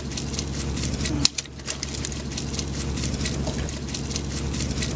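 A small petrol engine running steadily: a low hum with a fast, even ticking, which drops out briefly about a second in.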